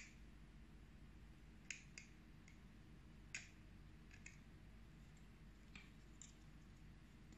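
Circlip pliers clicking against the tiny circlip on a GPU blower fan's shaft as the tips try to catch it: faint, sharp clicks at irregular intervals, about ten in all, over near silence.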